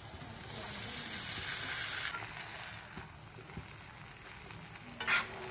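Hot oil and fried onion masala sizzling in a steel kadhai as cooked rice is tipped in and stirred, the sizzle loudest for the first two seconds and then quieter. A short sharp knock near the end.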